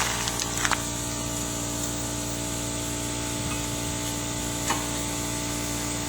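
Metal brake pads clicking as they are seated into the disc-brake caliper bracket: a couple of sharp clicks in the first second and another near the five-second mark. They sit over a steady background hum and hiss.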